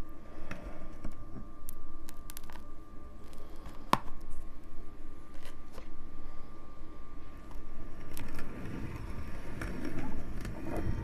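Metal perforated grinding plate being worked off the front of a meat grinder by hand, with light scraping and scattered clicks of metal and crushed candy, one sharp click about four seconds in.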